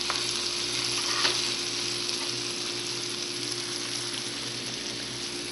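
Onion rings frying in hot oil: a steady sizzle, with a short click about a second in.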